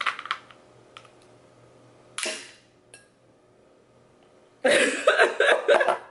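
Crab shell being cracked open with a metal crab cracker: a few sharp snaps and clicks, with a louder crack about two seconds in. Near the end comes a longer, loud burst of sound as she lays the cracker down.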